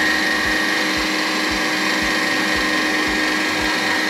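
Vitek VT-3618 electric meat grinder running steadily under load while stuffing sausage casing: a constant motor whine with a low pulse about twice a second.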